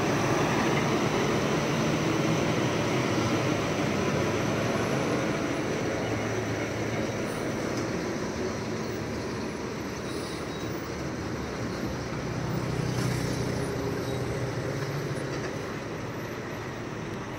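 Heavy diesel engines of loaded lorries and a bus running at low speed as they turn a hairpin bend, a steady drone that slowly fades, with one engine swelling louder about thirteen seconds in.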